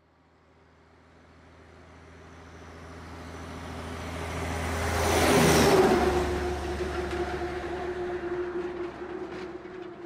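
A vehicle passing by: a steady hum that grows louder for about five seconds, peaks, then drops slightly in pitch and fades.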